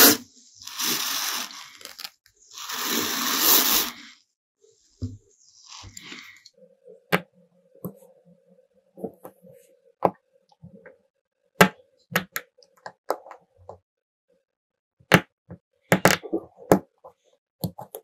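Two short bursts of hissing noise in the first four seconds, then scattered sharp clicks and taps of small metal lighter parts being handled.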